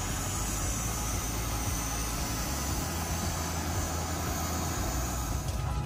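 Steady machine drone and hiss of an airport apron, with an unsteady low rumble underneath.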